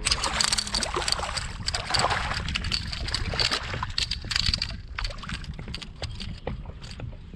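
Hooked redfish (red drum) thrashing and splashing at the water's surface beside a kayak, in irregular sharp splashes. The splashing dies down after about five seconds as the fish is lifted out of the water.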